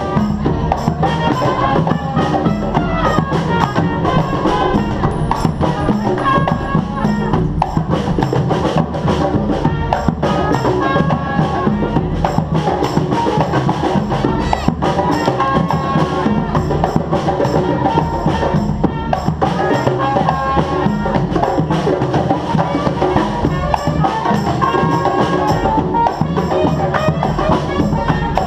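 Live band music played by a street band, with drums and hand percussion keeping a steady, busy beat.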